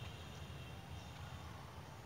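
Quiet forest ambience: a steady low rumble with a couple of faint, short, high bird chirps.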